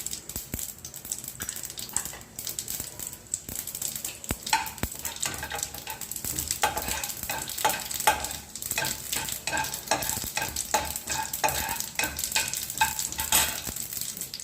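Mustard seeds and urad dal crackling and sizzling in hot oil in a kadai while they are stirred against the pan: the tempering stage of a curry. The stirring grows busier from about four and a half seconds in.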